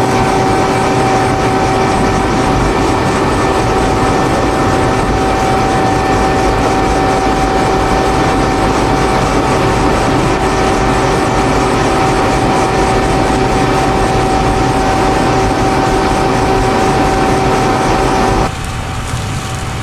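Dewulf RA4060 self-propelled potato harvester running steadily: engine and machinery noise with a steady whine on top. It drops away abruptly a little over a second before the end.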